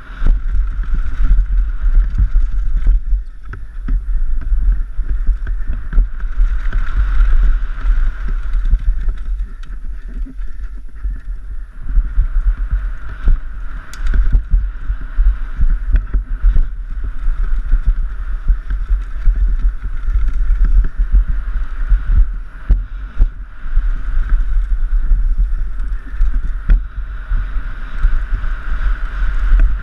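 Wind buffeting on a GoPro camera during a fast downhill mountain-bike descent, a continuous gusty rumble that rises and falls with speed. Tyres rumble over dirt and gravel, and the Giant Glory downhill bike knocks and rattles over the bumps of the trail.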